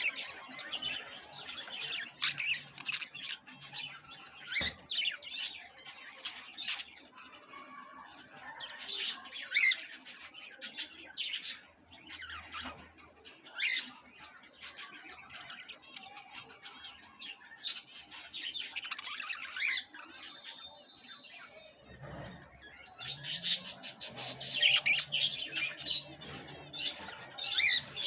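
Many caged budgerigars chattering: a dense mix of quick high chirps and squawks that swells in bursts, loudest near the start, about a third of the way in, and near the end.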